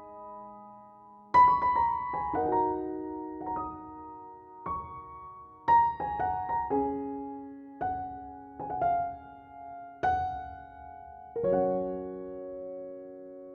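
Slow solo piano music: single notes and chords struck about once a second and left to ring, the last chord near the end held and fading.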